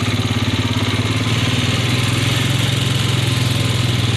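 A small engine running steadily at an even idle, with a rapid regular pulse.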